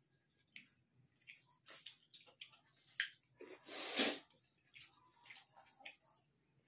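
Soft eating sounds: wet mouth smacks and chewing, and fingers mixing rice and curry on plates, a scattered string of short clicks. About three and a half seconds in comes a louder rushing noise lasting under a second, the loudest sound.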